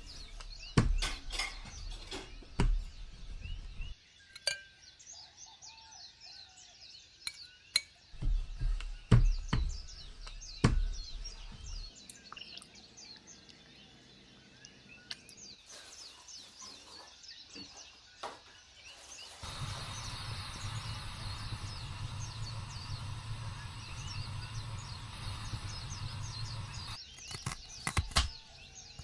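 Birds chirping throughout, with scattered clinks and knocks from cooking. For about seven seconds in the latter part, a steady rushing noise joins them.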